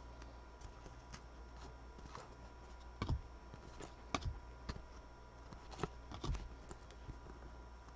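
Shiny football trading cards being handled and flipped through by hand: scattered light clicks and taps of card stock, a few with a dull thump, loudest around three seconds in and again near six seconds.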